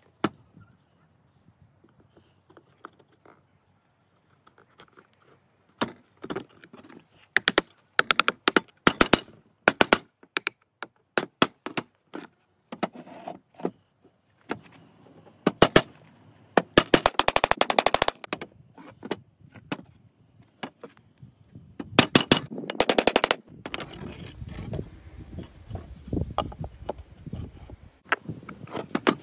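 A hammer tapping small nails into thin wooden birdhouse slats, in clusters of quick sharp strikes, some in rapid runs. Near the end there are a few seconds of steady hiss and low rumble.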